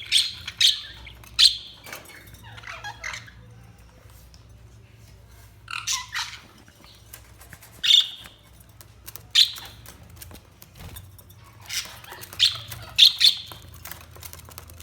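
Budgies (budgerigars) giving short, sharp chirps and squawks in scattered clusters, with a brief lull about four seconds in.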